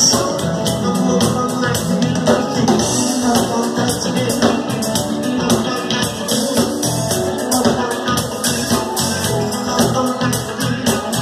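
Live band playing amplified music, with the drums keeping a steady beat of cymbal or hi-hat strikes about four times a second.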